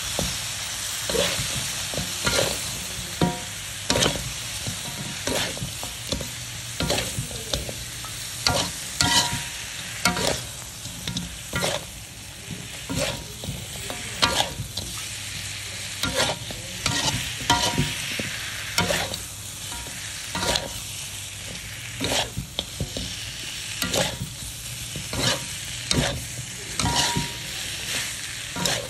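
Food sizzling in hot oil in a pan while it is stirred, with frequent irregular clacks of a spatula scraping and knocking against the pan over a steady hiss.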